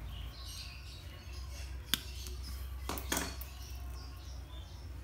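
Diagonal cutters snipping the lead of a blender's blown fuse, a single sharp click about two seconds in, with small handling clicks and rustles of wire around it over a steady low hum.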